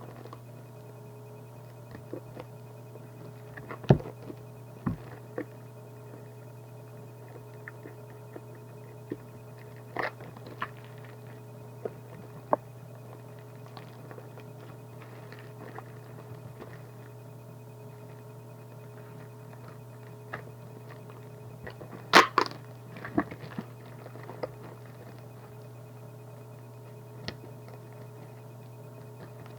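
Scattered knocks, taps and small rustles of a shoebox, its packaging and a pair of running shoes being handled, over a steady electrical hum. The loudest handling comes in a short cluster of knocks about two thirds of the way through.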